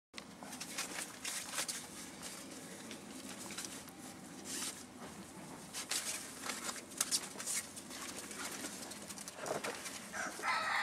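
Scattered clicks and scuffs as a Dobermann puppy plays with a toy on paving slabs. About ten seconds in, a long pitched call starts.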